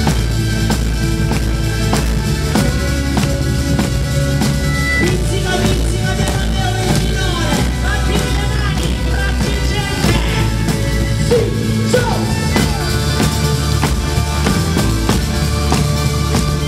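Pizzica played live by a band: a tamburello frame drum beats a steady, fast rhythm over electric guitars and bass, with a gliding melody line in the middle.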